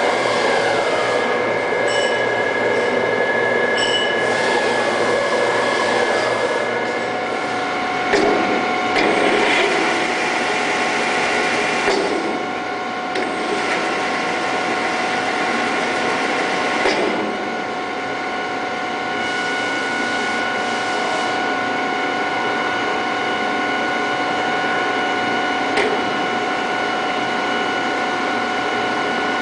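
Cincinnati Gilbert Model J horizontal boring mill running under power: a steady mechanical whir with high whining gear tones that change to a new set about seven seconds in. A few knocks come between about eight and seventeen seconds.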